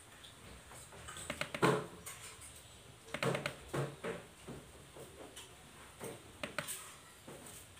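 A laptop being handled: scattered knocks and clicks, in three small clusters with single clicks between.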